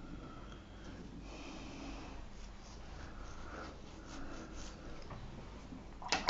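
A person breathing faintly close to the microphone, with light handling noise. Right at the end, a quick run of sharp clicks and taps starts.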